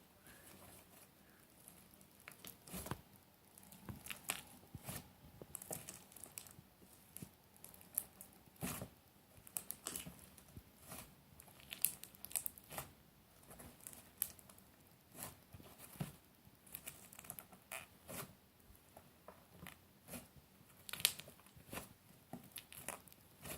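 Fluffy slime being squeezed and pulled apart by hand, giving irregular soft sticky crackles and small tearing sounds as it breaks up a little.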